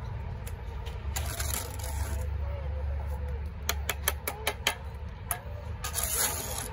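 Steel mason's trowel on a concrete block: a scrape through mortar, then a quick run of sharp taps a little past the middle as the block is set down to the string line, and another scrape near the end. A steady low rumble runs underneath.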